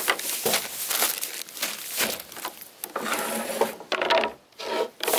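Plastic bags crinkling and rustling as food is handled. A cutting board is set down with light knocks on a wooden picnic table.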